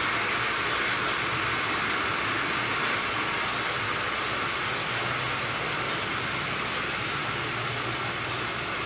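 Märklin model train running on the layout track: a steady whir and rumble of motor and wheels on rails, with a few faint clicks.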